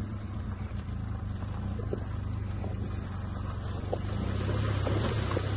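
Benelli TRK 502 X adventure motorcycle's parallel-twin engine running steadily as the bike rides into a shallow river ford. Water splashing from the tyres grows louder over the last second or two.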